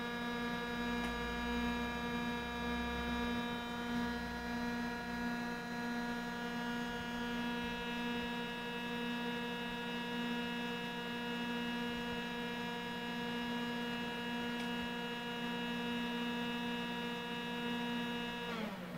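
Konica Minolta Bizhub C250 colour copier making its abnormal loud, steady buzzing drone, a fault noise it makes on start-up or colour copying. The drone stops near the end with a short drop in pitch.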